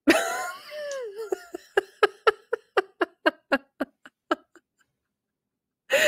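A woman laughing: a drawn-out falling laugh, then a string of short laughing pulses, about four a second, that fade out about four and a half seconds in.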